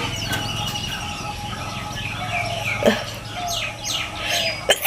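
Birds chirping and calling in many short, quick notes over a steady low hum. Right at the end comes a sudden sharp sound, the start of a loud human sneeze.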